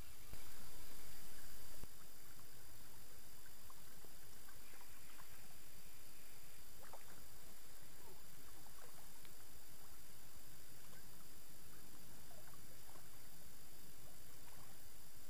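Faint splashing of water at the shoreline, with scattered small ticks, under a steady hiss; a louder rush comes about half a second in and lasts just over a second.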